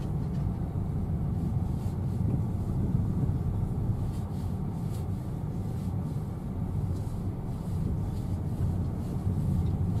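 Car cabin noise while driving: a steady low rumble of the engine and tyres heard from inside the car.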